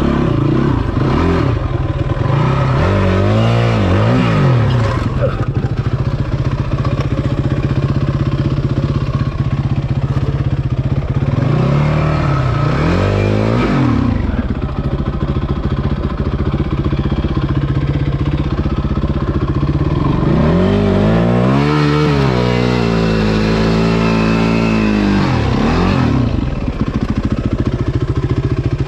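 Yamaha WR450F's single-cylinder four-stroke engine idling and being revved up and back down three times, the last rev longer and wavering.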